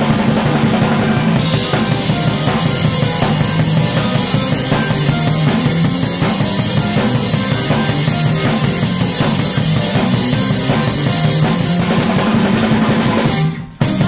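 A drum kit and electric bass guitar playing live, with the bass drum and snare driving under a heavy, steady bass line. Near the end the playing breaks off suddenly into a few sharp hits.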